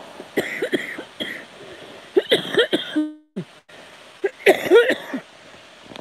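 A woman coughing close to the microphone, in several short bouts. The sound cuts out briefly about halfway through.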